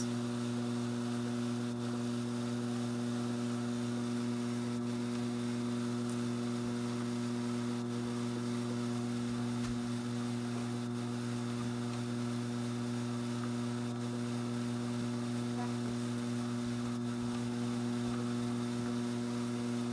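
Strauch Mad Batt'r electric drum carder running, its motor giving a steady, even hum.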